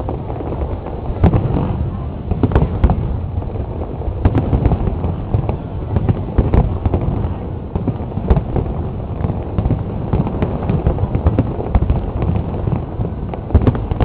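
Large aerial fireworks display: a dense, irregular run of sharp bangs over a continuous low rumble.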